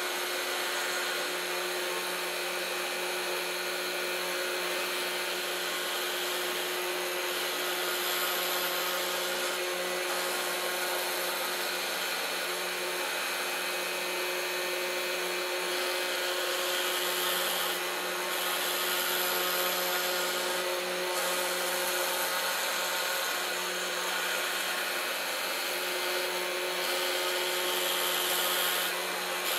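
MPCNC Primo CNC router milling a wooden sheet: the spindle runs steadily with a whine while its small bit cuts a circle. The higher cutting hiss grows and fades in patches as the tool moves along its path.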